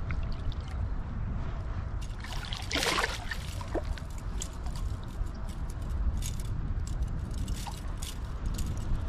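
Water sloshing and splashing, with one louder splash about three seconds in, over a steady low rumble. Light clicks and rattles of handling follow.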